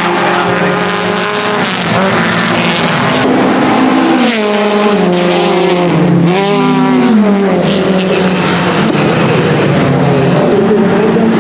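Naturally aspirated BMW 2002 racing car's inline-four engine running hard at high revs, holding a steady pitch for about three seconds, then climbing and dropping in pitch with throttle and gear changes, with another quick rise and fall about six seconds in.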